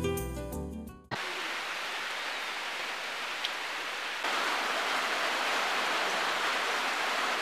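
Soft music fades out in the first second, then steady rain falls with an even hiss, a little louder from about four seconds in.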